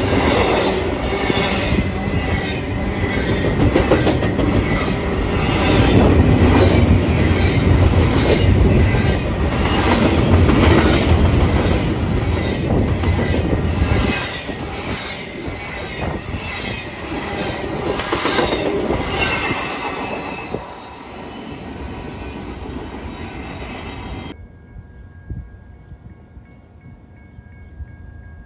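A train passing close by, its wheels clacking over rail joints in a rapid, even rhythm over a heavy rumble, loud for about the first half and then trailing off. About 24 seconds in, the sound cuts off abruptly, leaving a quiet background with a faint steady whine.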